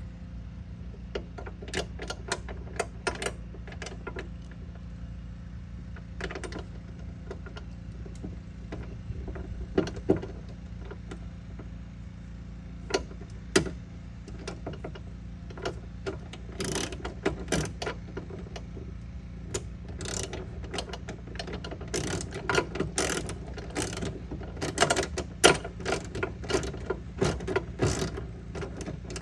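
Socket ratchet clicking as a hood-hinge bolt is turned. Scattered clicks and taps of metal parts come through the first half, then long runs of quick ratchet clicks fill the second half.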